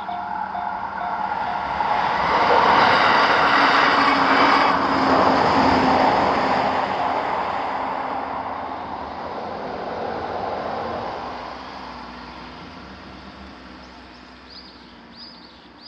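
Electronic warning bell of a Japanese level crossing ringing in a quick, even pulse, soon drowned by an electric train of the JR Sotobo Line passing over the crossing, its wheel and running noise loudest about three to five seconds in and then fading slowly away. A few bird chirps near the end.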